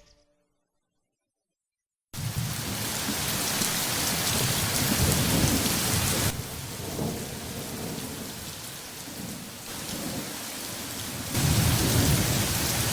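Heavy rain with low, rolling thunder rumbles, starting suddenly about two seconds in after a silence. The storm eases through the middle and swells again near the end.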